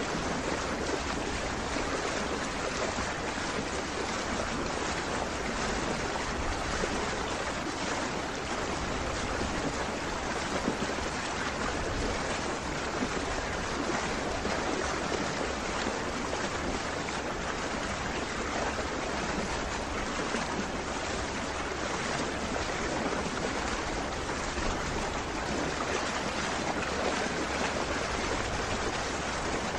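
Steady rush of lake water and wind, heard from a boat moving slowly across the water.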